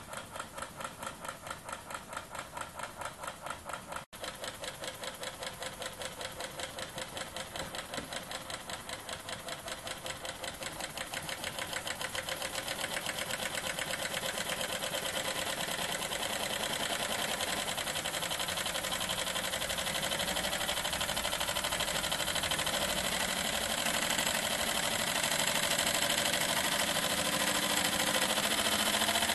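Small single-cylinder rotary valve model steam engine running on compressed air at very low pressure, puffing out exhaust air in a steady rhythm. The puffs start at about two or three a second, then speed up and grow louder until they run together into a fast continuous chuff.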